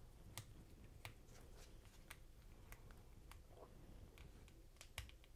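Near silence with a handful of faint, sharp clicks from a small screwdriver turning out the screws of a model locomotive's split-frame chassis; the sharpest click comes near the end.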